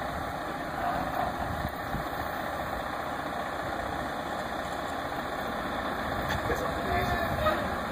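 Heavy truck engines running steadily at low speed while hauling a building along the road.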